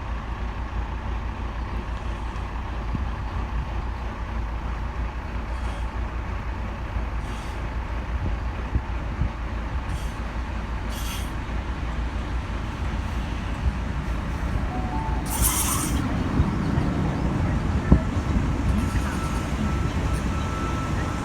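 V-set electric intercity train arriving at the platform. A steady rumble grows louder in the second half, with a short squeal and a brief hiss of air about fifteen seconds in, as the air brakes work.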